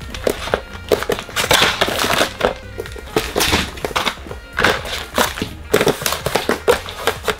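Crinkling plastic and clicking hard plastic kit parts as hands handle a Mini 4WD kit in its cardboard box, close to the microphone: a dense, uneven run of crackles and clicks.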